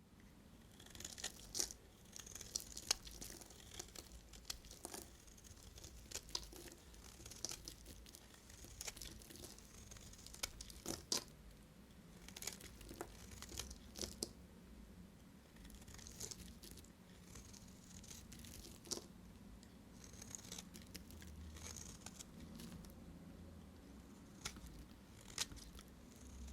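Dry bar soap being cut with a knife: a quiet, crisp run of crackling and scraping, broken by sharp snaps every second or so.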